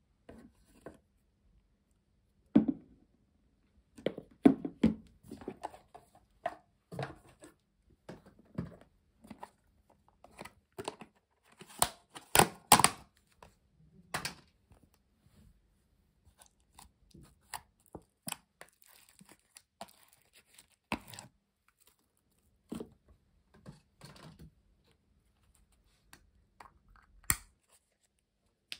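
Plastic slime containers being handled and opened: irregular clicks and knocks of lids and tubs, with sticky, tearing sounds as slime is turned out of a tub into a bowl. The loudest clicks come in a quick cluster about halfway through.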